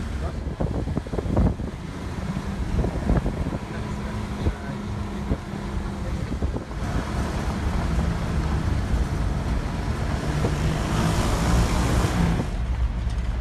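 A motor vehicle's engine running steadily, with wind rushing over the microphone. A few knocks come about a second in. The rushing grows louder from about seven seconds in and falls away shortly before the end.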